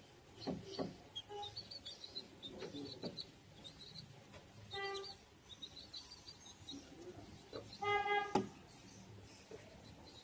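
Serama bantam chickens calling on a farm: repeated short high chirps throughout, with two brief, full-toned calls, one about five seconds in and a louder one near eight seconds, and a few light knocks.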